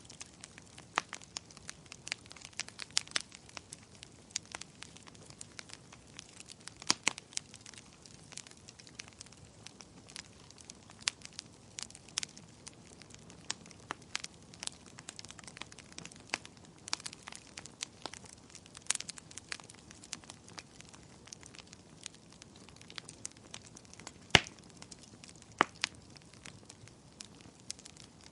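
Wood fire crackling in a fireplace: irregular snaps and pops over a soft hiss, with a few sharper pops, the loudest near the end.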